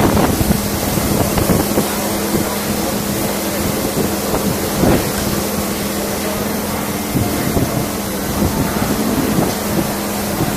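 Wind buffeting the microphone over a steady machine hum that holds one constant low tone.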